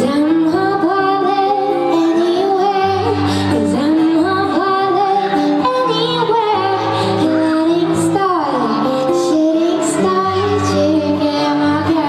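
A woman singing a pop melody live into a microphone over instrumental accompaniment, with held bass notes changing every second or two beneath the voice.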